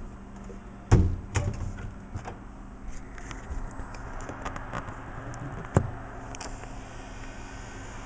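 1986 Litton microwave oven's door shut with a thump about a second in, followed by clicks and rattles of handling and another sharp click near six seconds, over a steady low electrical hum.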